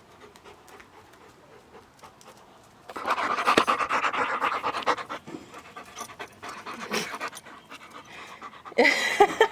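A dog panting heavily, loudest from about three seconds in for two seconds. Near the end comes a short, louder pitched sound.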